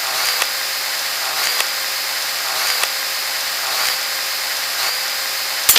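A steady mechanical whirring with a faint high tone that dips briefly, with a click, about once a second, cutting off abruptly near the end.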